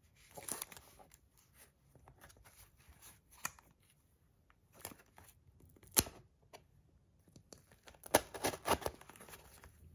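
Small cardboard shipping box being handled and worked open by hand: scattered scrapes and taps on the cardboard, one sharp click about six seconds in, and a cluster of scraping and rustling near the end.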